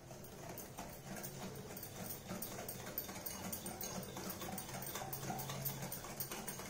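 Wire whisk stirring orange juice and powdered sugar in a glass bowl: rapid, light clicking of the wires against the glass as the sugar is mixed in to dissolve.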